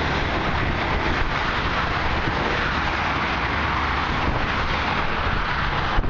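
Steady rush of heavy highway traffic, the tyre and engine noise of many cars passing together, with wind rumbling on the microphone.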